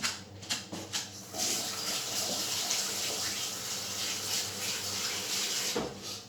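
A few short knocks, then a water tap running into a sink as sticky hands are washed; the water comes on about a second and a half in and is turned off near the end.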